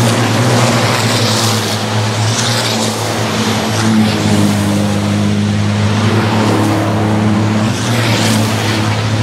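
A pack of racing trucks on a circuit, their turbo-diesel engines running loudly together. The engine note is steady and steps in pitch a few times as the trucks change speed.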